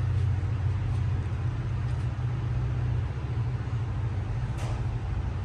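A steady low mechanical drone, with a faint brief sound near the end.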